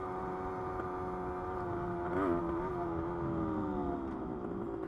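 A 1972 Yamaha LT2 100 Enduro's 100cc single-cylinder two-stroke engine running under way. Its pitch wobbles briefly about two seconds in, then eases down slightly as the throttle comes off.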